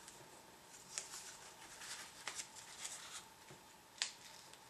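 A sheet of letter-size paper rustling faintly as fingers fold it and tuck a paper airplane's tip into a pocket, with a few sharp crinkles about 1, 2 and 4 seconds in.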